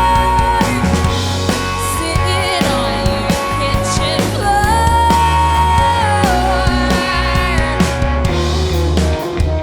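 Rock band playing live: drum kit, bass guitar and electric guitar, with a long held lead melody note that slides up partway through and slides back down a second and a half later.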